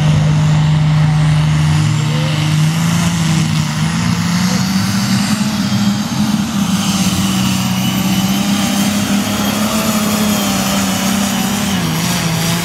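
Modified pulling tractor's engine running loud and steady while hooked to the pulling sled, stepping up in pitch about two seconds in and holding there, with a thin high whine above it. Near the end it dips and picks up again as the tractor pulls the sled down the dirt track.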